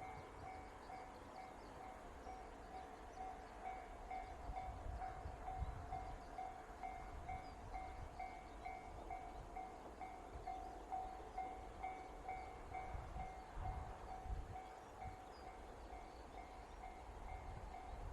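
Japanese railway level-crossing warning bell ringing in steady, evenly repeated dings, with gusts of wind rumbling on the microphone.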